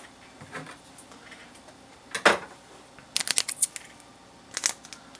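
Hands handling small packaging: a single tap about two seconds in, a quick run of small clicks and crinkles a second later, and one more click near the end.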